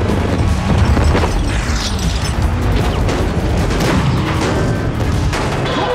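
Action-film soundtrack: driving score music mixed with several explosion booms and crashes.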